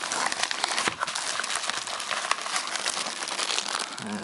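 Plastic packaging crinkling and rustling continuously as it is handled and unwrapped, with scattered sharp clicks.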